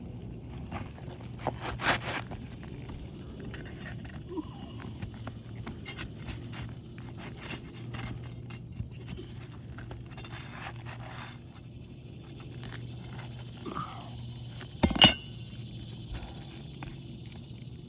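Scattered scrapes and clicks of an asphalt shingle being pried loose and its nails pulled, with one loud sharp knock about fifteen seconds in.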